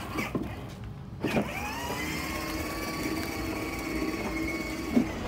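Electric motor of a battery-powered ride-on toy truck whining steadily as it drives. It drops away about half a second in and picks up again with a short rising whine a little after one second.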